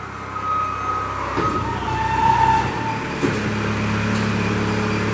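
Kubota diesel engine of a Moffett M55.4 truck-mounted forklift running as the machine drives, its note picking up and holding steady from about three seconds in. A high beeping tone sounds in the first second and a half.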